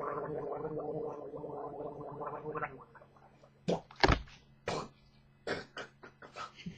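A person gargling a mouthful of liquid for about three seconds, then a run of short, sharp noises with a loud thump about four seconds in.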